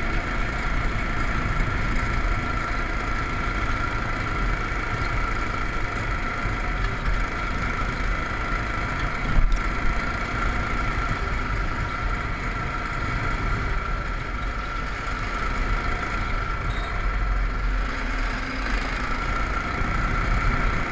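Go-kart engine running steadily while the kart drives along a gravel lane, a constant drone with a low rumble underneath. One sharp knock about nine and a half seconds in.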